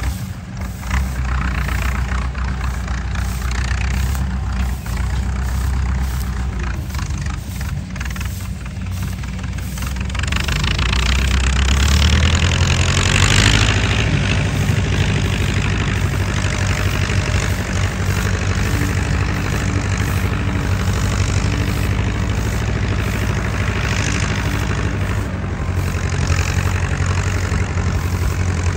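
Diesel engine of farm machinery running steadily at a low pace, then picking up speed about eleven to twelve seconds in and holding the higher speed, with a brief rushing noise just after the change.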